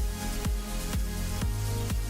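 Background music with a steady beat of about two beats a second over sustained bass notes.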